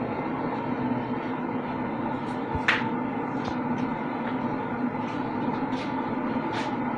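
Noodles being stir-fried in a pan over a stove: a steady low running hum with short clinks of the spatula against the pan about every second, several in all.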